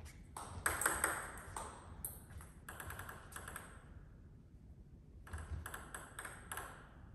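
Table tennis ball hitting rackets and bouncing on the table in a rally, a quick run of sharp clicks echoing in a large hall. After a pause of about a second and a half, a second run of hits starts.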